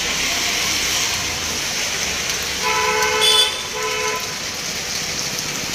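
Steady hiss of rain on a wet street, with a vehicle horn honking twice about three seconds in, the first honk longer than the second.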